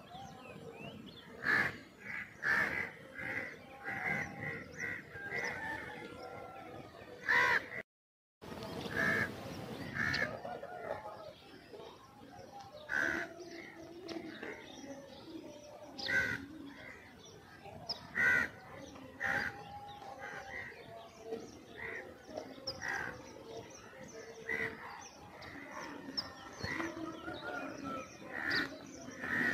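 Crows cawing again and again, with other birds chirping among them. The sound drops out completely for a moment about eight seconds in.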